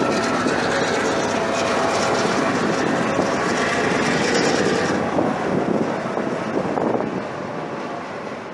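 Diesel-hauled passenger train passing close below: coaches rolling over the rails, then the diesel locomotive's engine running loud as it passes about four to five seconds in. The sound then fades steadily as the train moves away.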